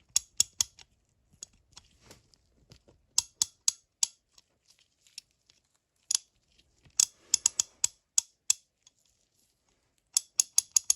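Kobalt USA ratchet head with its cover off, the pawl clicking over the 36-tooth gear as the ratchet is worked back and forth. The clicks come in several short, quick runs with pauses between them.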